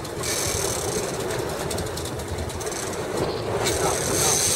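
Fishing boat's engine running steadily under a churning, rumbling background. Hissing water splashes along the hull come in soon after the start and again near the end.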